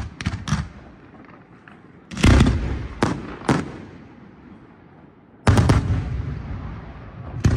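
Aerial firework shells bursting overhead. A couple of bangs come just after the start, then a loud cluster of bangs about two to three and a half seconds in and another about five and a half seconds in. Each cluster is followed by a rolling rumble that fades away.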